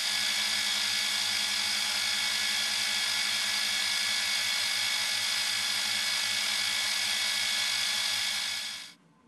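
Milling machine spindle running a tiny carbide end mill at high speed, taking very light cuts back and forth along a 2 mm keyway in a 10 mm bar. It is a steady, high-pitched whine that fades out shortly before the end.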